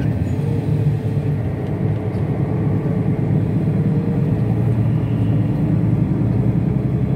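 Airport apron bus driving, heard from inside the passenger cabin as a steady low rumble of engine and road noise.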